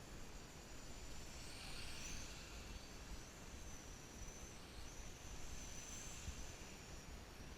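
Small brushed-motor quadcopter's propellers whining at a high pitch, rising and falling as the motors change speed, faint over a low rumble.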